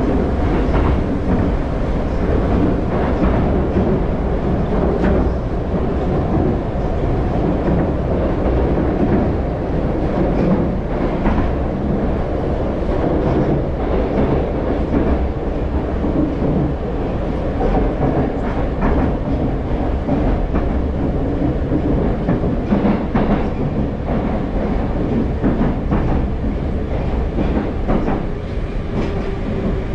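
Moskva-2020 metro train heard from inside the carriage, running at speed through a tunnel: a steady, loud rumble of wheels and running gear, with occasional clicks as the wheels pass over the track.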